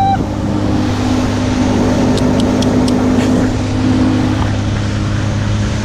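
Small motorboat's engine running steadily at speed, with wind and water rushing past. Four quick faint ticks come about two seconds in.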